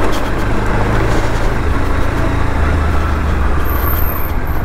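Motorcycle engine running while the bike rides over a dirt trail, with steady wind rush on the microphone.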